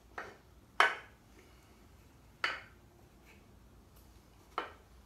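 Steel connecting rods on a stroker crankshaft clinking against the crank and the metal engine case half as the crank is worked into its main bearings: four sharp metal clinks, the loudest about a second in.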